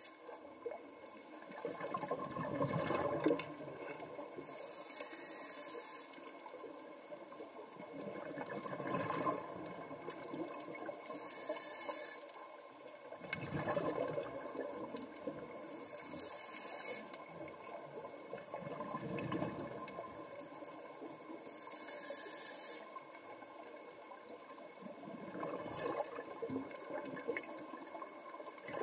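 Scuba diver breathing through a regulator underwater: a short hissing inhalation followed by a longer gurgle of exhaled bubbles, repeating about every five to six seconds.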